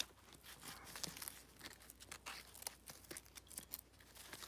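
Faint rustling and crinkling of a nylon radio pouch on a plate carrier as a hand handles it and closes its flap, with scattered small clicks.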